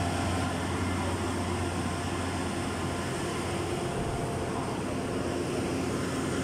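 Steady mechanical drone of running machinery: a low hum with a few steady tones over an even rush of noise.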